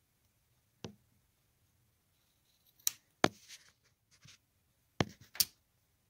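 About half a dozen irregular sharp clicks and taps of a hard plastic horse figurine being handled, as a small leather strip is pressed around its leg. The loudest click comes a little past three seconds in.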